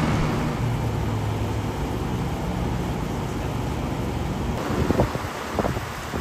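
Outdoor condensing unit of a 1986 Lennox HS18 central air conditioner running, giving a steady low hum with the rush of its fan. A few short knocks come near the end.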